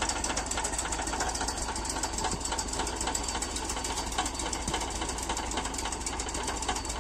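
Engine of a forage chopper running steadily with a fast, even pulsing beat.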